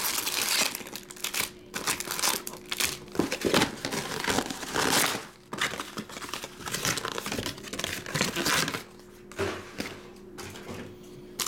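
Trading card pack wrappers crinkling and being torn open, in irregular bursts of rustling and tearing.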